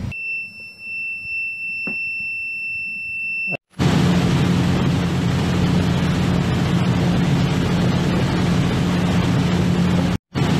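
A continuous high-pitched alarm tone sounds for about three and a half seconds, then cuts off abruptly. It gives way to the loud, steady noise of a ship's engine-room machinery running with a deep even hum, which drops out briefly near the end.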